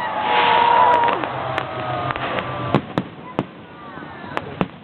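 Fireworks going off: a run of sharp separate bangs and pops, most in the second half, over a steady crowd hubbub.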